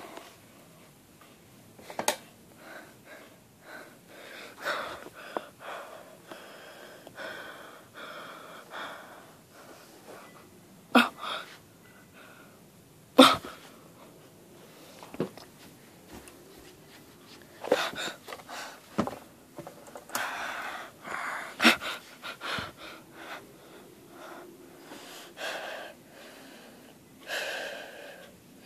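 Soft breathing close to the microphone, with several sharp clicks and knocks from the phone being handled.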